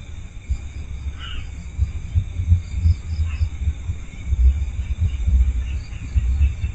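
Crickets and other insects chirping steadily in rice fields, over a loud, uneven low rumble on the microphone.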